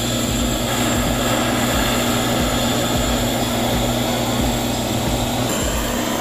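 Homemade propane forge burner running, a steady loud rushing noise of the gas flame with a faint low hum beneath it.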